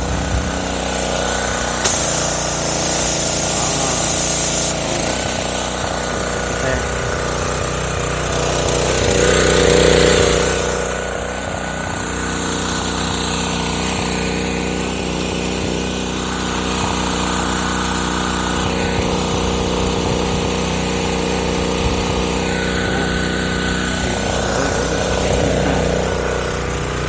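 Small gasoline engine of a pressure washer running steadily, swelling louder for a moment about ten seconds in.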